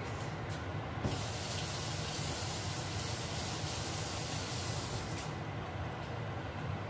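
A steady hiss, strongest in the high treble, that starts abruptly about a second in and stops abruptly about four seconds later.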